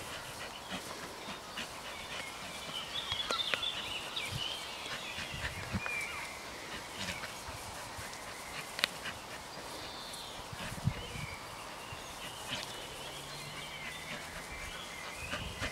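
Faint animal sounds: high chirping calls come and go, with scattered small clicks.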